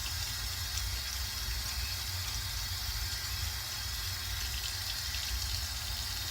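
Water running steadily from a tap into a sink during rinsing.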